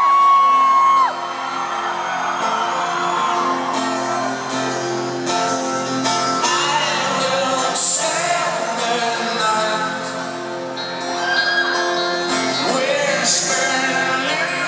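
Live folk-rock band music: a held vocal harmony breaks off about a second in, the level drops, and acoustic guitar and banjo play on with some singing.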